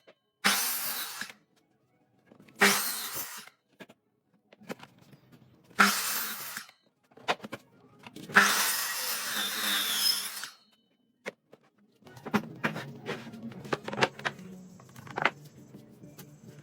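Power tool run in short bursts, four times, each starting suddenly and lasting about one to two seconds, the last one longest; near the end come scattered clicks and knocks over a low steady hum.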